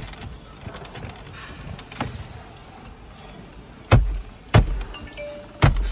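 Hands thumping the plastic air-conditioner vent panel of a BMW X5 F15 dashboard back into place, its clips seating: a few light clicks, then three sharp thumps close together near the end.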